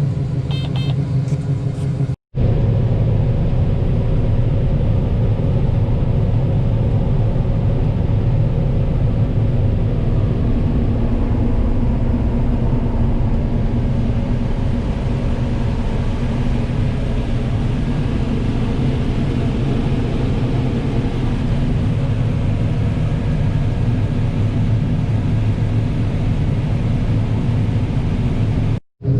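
A corn combine harvester runs steadily under load while shelling: a constant low engine drone with a hum of machinery over it. The sound cuts out briefly about two seconds in and again just before the end.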